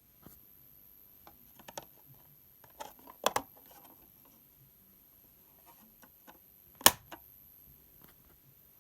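A series of irregular sharp clicks and knocks, with two louder ones about three and seven seconds in.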